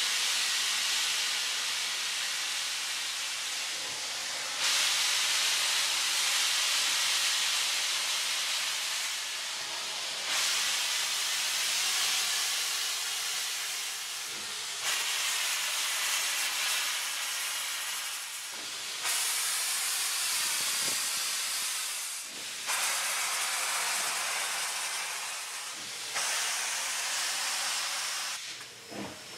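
Reading 4-8-4 steam locomotive No. 2102 pulling away slowly with its cylinder cocks open, blowing a continuous hiss of steam. The hiss surges suddenly louder every few seconds, with the surges coming closer together as the engine gathers speed.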